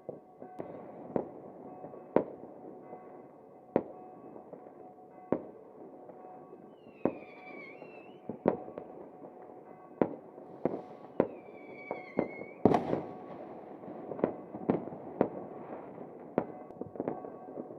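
Fireworks going off: a string of sharp bangs and cracks at irregular intervals, with two whistles that fall in pitch, about seven and eleven seconds in, and the loudest bang soon after the second whistle.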